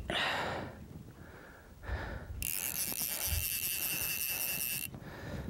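A fly reel's click drag buzzing steadily for about two and a half seconds as line runs on or off the spool while a hooked fish is played. It starts and cuts off sharply, after a short noisy rustle at the start.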